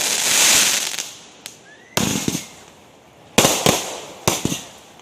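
Aerial fireworks bursting: a sharp bang opens into crackling that dies away over about a second, then a short rising whistle leads into another bang about two seconds in, and several more bangs follow in quick succession in the second half.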